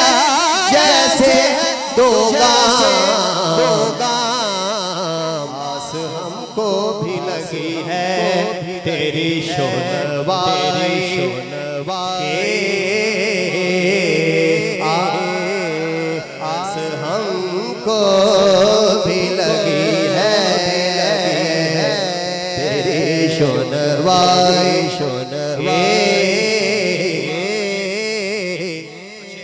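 A man singing a naat, an Urdu devotional poem, into a microphone, with long wavering ornamented notes over a steady low drone.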